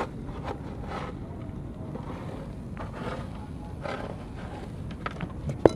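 A grill fire being fanned with a styrofoam box lid: a steady noisy rush with a few soft whooshes, and one sharp click near the end.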